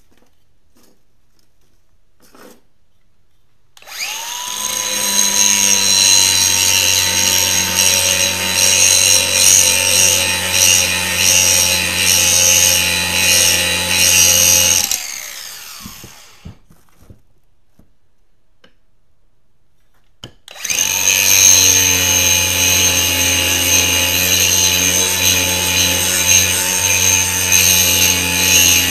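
Angle grinder spinning up about four seconds in and grinding steel off the end of a hydraulic top link cylinder, then winding down after about eleven seconds. After a few quiet seconds with a couple of light knocks, it starts again at about twenty seconds and keeps grinding.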